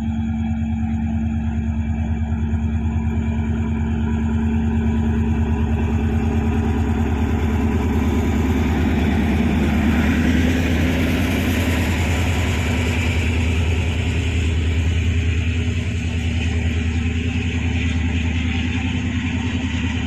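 Indian Railways DEMU (diesel-electric multiple unit) train's diesel engine running with a steady low throb. A rushing noise swells around the middle.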